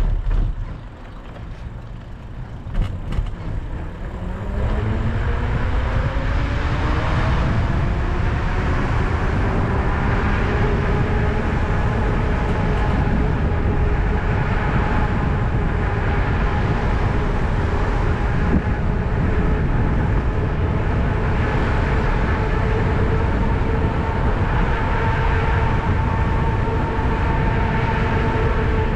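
Electric bike motor whining, rising in pitch as the bike picks up speed about four seconds in, then holding a steady pitch at cruising speed. Wind rumble on the camera's microphone and tyre noise run underneath, with a few knocks early on.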